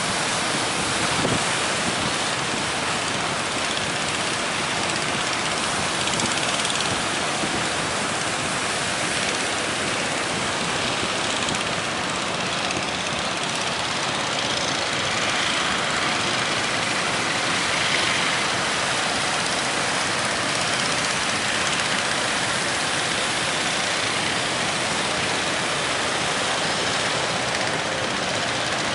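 Boat under way at sea: its engine runs steadily under a constant rush of wind and water.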